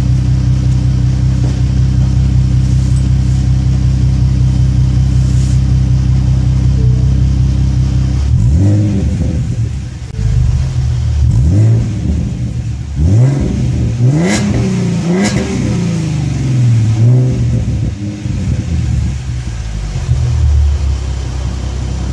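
2017 Ford Mustang's 3.7-litre V6 through an aftermarket Flowmaster exhaust, idling steadily. About eight seconds in, it is revved in a series of quick throttle blips, each rising and falling in pitch, before settling back to idle near the end.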